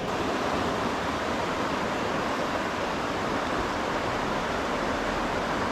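Steady rush of fast-running water from a rain-swollen creek.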